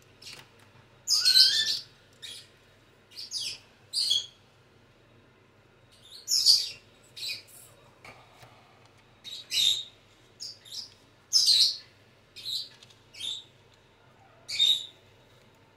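A bird chirping in short, irregular high-pitched calls, some single and some in quick pairs, with gaps of up to a couple of seconds.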